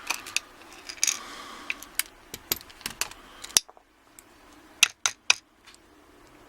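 Brinks 642 padlock being taken apart by hand: a series of sharp metallic clicks and clinks from its small parts, at irregular spacing.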